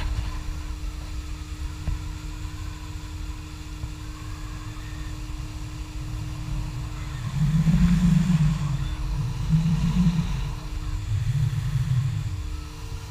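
Outboard motor on a small fishing boat running at speed, a steady drone under rushing wind and water. The low rumble swells louder three times in the second half.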